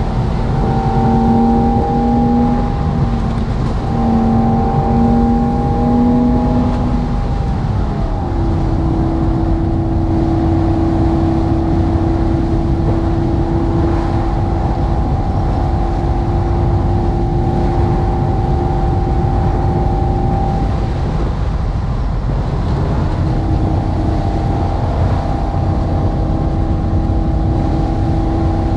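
Synthesized sports-car engine and exhaust sound from an OBD2 engine-sound app, played through the car's speakers over tyre and road rumble while cruising. The engine note wavers for the first several seconds, changes pitch about eight seconds in and then holds a steady drone, dropping away briefly about three-quarters of the way through before coming back.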